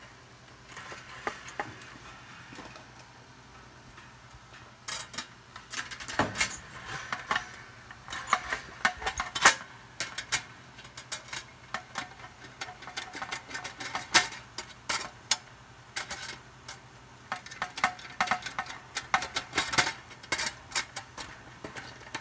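Small metallic clicks, taps and scrapes of hands working a wire's spade connector onto a thermostat terminal on an Amana dryer's sheet-metal heater housing. The clicks are sparse for the first few seconds, then come thick and fast.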